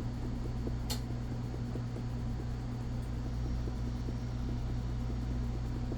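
A steady low mechanical hum, with faint irregular scratchy ticks from a fiberglass pencil scrubbing the locomotive's dirty wheel wiper pickups, and one sharper click about a second in.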